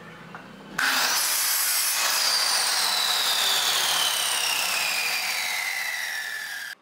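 Electric compound miter saw starts suddenly about a second in and cuts through a round wooden rail, then its motor spins down with a slowly falling whine until the sound stops abruptly near the end.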